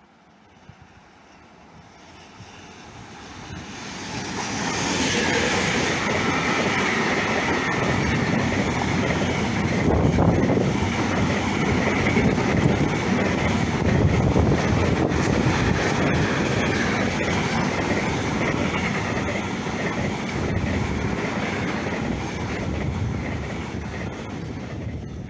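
Intermodal freight train of pocket wagons carrying lorry trailers passing close by. The noise swells over the first few seconds as the locomotive arrives, then settles into a steady rumble of wagons with repeated wheel clicks and a steady high-pitched ring, easing slightly near the end.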